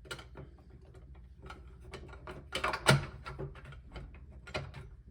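Small clicks and knocks from an electronic safe lock's battery compartment and housing being handled and fitted back together, with the loudest knock about three seconds in.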